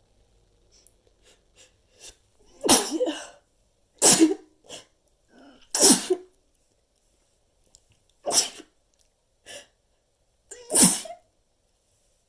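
A person stifling a run of sneezes: five short, held-in sneezes spread over about eight seconds, with fainter small sounds between them.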